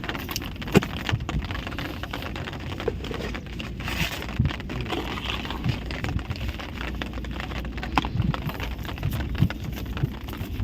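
Light rain falling, scattered drops ticking irregularly over a steady hiss and low rumble, with a few soft knocks.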